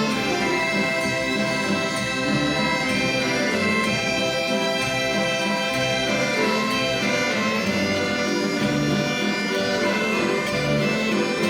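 Instrumental waltz played on folk instruments, steady held melody notes over a moving bass line.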